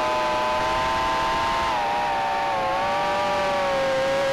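Micro quadcopter's motors whining steadily at a high pitch, several close tones wavering slightly up and down as the throttle shifts.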